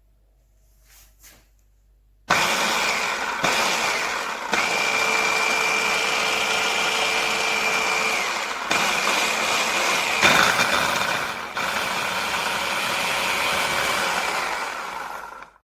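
Bosch ErgoMixx 600 W hand blender starting about two seconds in, after a few faint clicks, and running steadily with a thin whine. Its sound shifts a few times as it works, then cuts off suddenly near the end.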